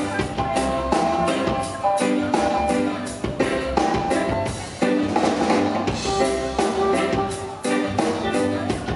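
Live reggae band playing, with the drum kit keeping a steady beat under held chords.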